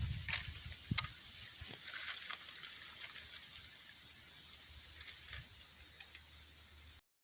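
Quiet outdoor ambience: a steady high hiss with a few soft clicks in the first couple of seconds, cutting off abruptly just before the end.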